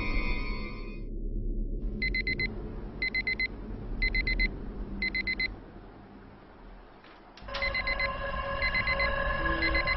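Electronic alarm clock beeping in short bursts of rapid beeps, about one burst a second. After a pause of about two seconds, a second layer of steady tones comes in under the beeping near the end.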